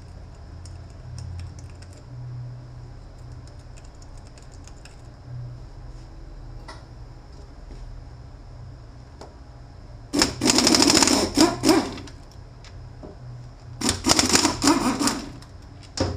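Impact wrench running in two rattling bursts of about a second and a half each, spinning out bolts on a BorgWarner 1356 transfer case, with faint tool and part clicks before them.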